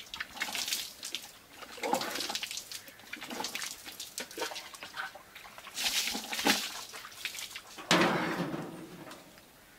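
Water splashing and dripping as a man washes his face with handfuls of water from a plastic mug, in a run of short splashes, with a louder, longer splash about eight seconds in.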